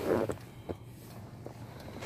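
Rubbing and rustling of a handheld camera being swung around inside a car cabin, loudest right at the start, followed by a few light clicks, over the steady low hum of the car's engine idling.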